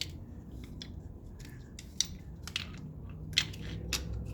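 Irregular sharp metallic clicks and clinks of sockets and tools being handled and picked through, about a dozen of them, with the loudest knocks about two seconds and three and a half seconds in.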